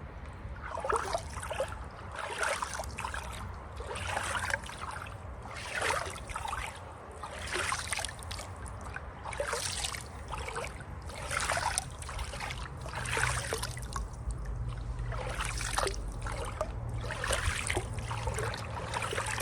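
Pool water splashing in repeated short bursts, about one a second, over a steady low rumble.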